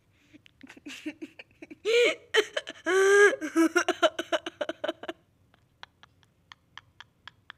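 A high-pitched voice giggling and squealing in short bursts, two longer squeals the loudest, then stopping about five seconds in, after which faint sharp clicks come about three a second.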